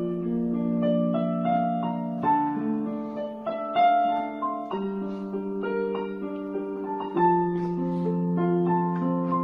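Digital piano keyboard played in a slow piece: held chords with a melody line above them, the chord changing about every two and a half seconds.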